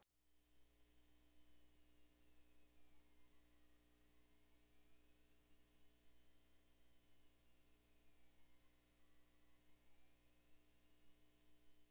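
Pure sine test tone from an online tone generator, gliding slowly up and down twice between about 8 and 9 kHz at a steady level. It is a frequency sweep for finding the ear canal's half-wavelength resonance, which shows as a sudden rise in loudness when heard on earphones.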